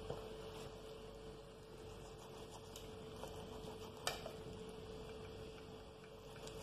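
Quiet, faint sounds of a kitchen knife cutting meat off the bone of a raw chicken, with a soft click about four seconds in, over a faint steady hum.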